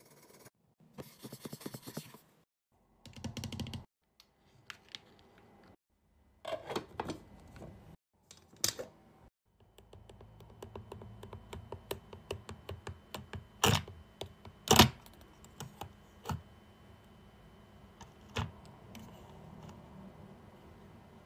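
Wooden spatula stirring melted hard wax in a metal wax-warmer pot: irregular clicks, taps and scrapes of the stick against the pot, in short stretches broken by brief silences, with two sharper knocks about two-thirds of the way through.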